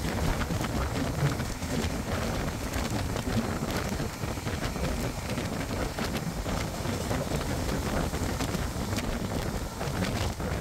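Passenger train running along the track: a steady rumble of wheels on rails with scattered faint clicks, and wind blowing across the microphone.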